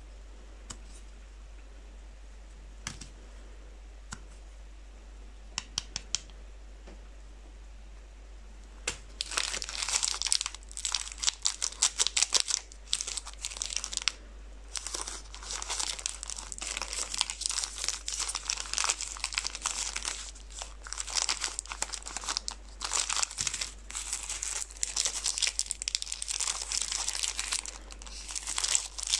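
Plastic chocolate-bar wrappers crinkling and tearing as hands handle and open them. The sound is dense and continuous from about nine seconds in, after a few faint clicks.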